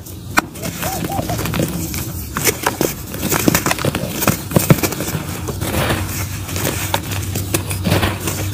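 Hands squeezing and crumbling chunks of dry, chalky mud into crumbs and powder: dense, irregular crunching and crackling.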